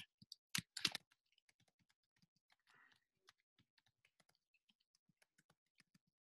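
Faint computer keyboard typing: a quick, irregular run of key clicks, with a few louder clicks in the first second.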